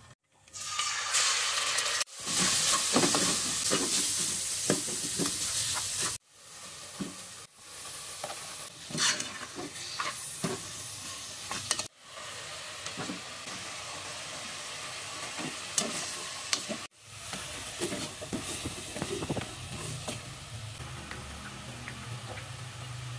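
Hot oil sizzling in an aluminium pot as fish pieces coated in green herb paste fry, loudest in the first few seconds. A ladle clinks and scrapes against the pot during stirring. The sound breaks off abruptly a few times.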